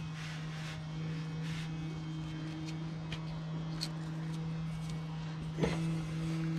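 A steady low hum, with a few faint clicks and a sharper knock about five and a half seconds in.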